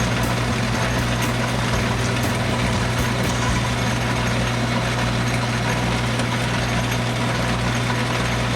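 Atlas metal lathe running steadily under power, a continuous hum of motor and gearing, with a few faint ticks in the first few seconds.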